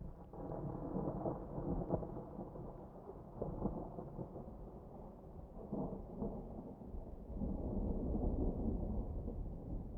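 Thunder rumbling over light rain: a deep, rolling rumble that swells right at the start, again a few seconds in, and once more in the latter half.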